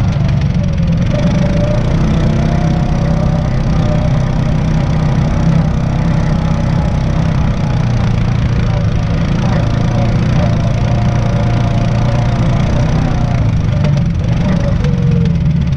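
ATV engine running steadily while riding a dirt trail, a constant low drone with a higher whine that wavers up and down in pitch.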